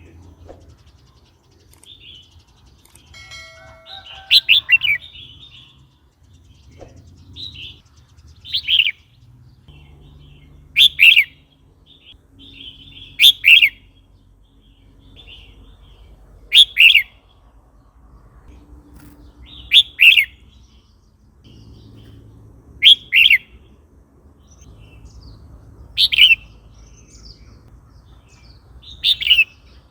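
Red-whiskered bulbul singing: short, loud whistled phrases repeated every two to three seconds, about nine in all.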